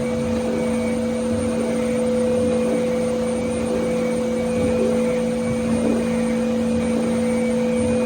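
CNC router spindle spinning a 6 mm end mill at 13,500 RPM through a facing pass: a steady whine over a rushing hiss.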